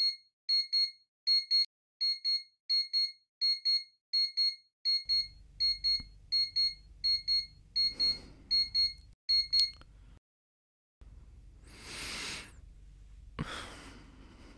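Electronic beeper sounding short, high-pitched beeps about three times a second, stopping abruptly about ten seconds in. Near the end come two loud, heavy breaths.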